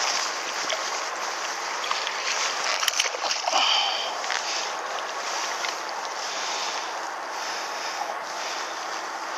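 Wind buffeting the microphone over lapping water. About three and a half seconds in, a louder splash marks a hooked bass thrashing at the surface beside the boat.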